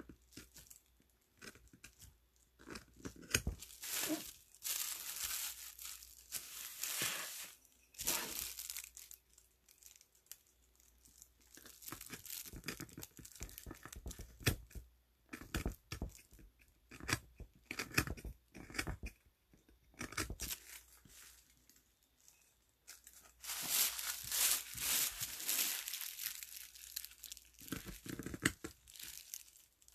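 Small hand carving blade cutting and scraping into the edge of a wooden block: irregular dry scratching strokes in clusters, with short pauses between them.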